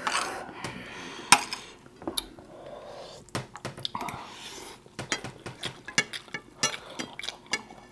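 Metal spoons and forks clinking and scraping against ceramic plates and bowls while eating, with one sharp clink about a second in and a quick run of lighter clinks in the second half.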